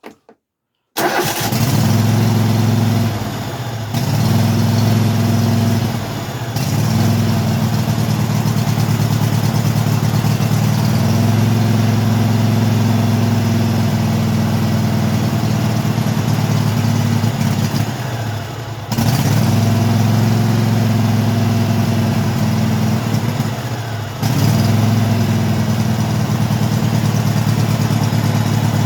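Kohler V-twin engine on a Craftsman lawn tractor running steadily. Its speed dips briefly and comes back up about four times.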